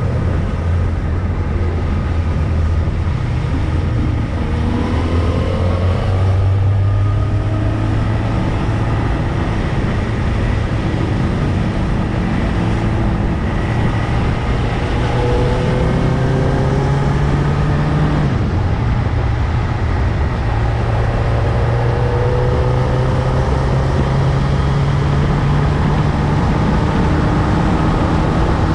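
Motorcycle engine running under way, rising in pitch through the gears, with a brief drop about eighteen seconds in, over steady wind and road noise.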